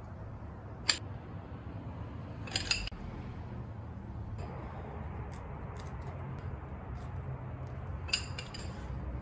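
Metal socket on a breaker bar clinking against wheel lug nuts as they are fitted and tightened: a sharp clink about a second in, a few clinks together near three seconds and again near the end, with faint ticks between.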